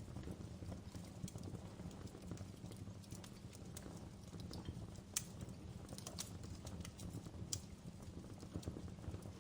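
Wood fire crackling in a fireplace: irregular sharp pops and snaps over a low steady rumble of the flames, with two louder snaps in the middle.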